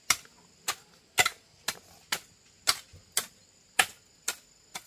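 Repeated sharp knocks, evenly spaced at about two a second, like steady striking or chopping.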